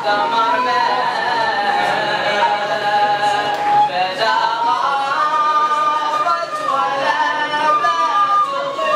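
A group of men singing a Sufi religious chant (inshad) in unison, with a wooden flute playing the melody along with them. The notes are long and held, the tune stepping up in pitch about halfway through and back down near the end.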